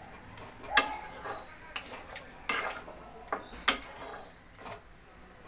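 A spatula stirring chunks of potato, pumpkin and prawns in thick masala in a nonstick kadai, scraping the pan with a few sharp knocks against it.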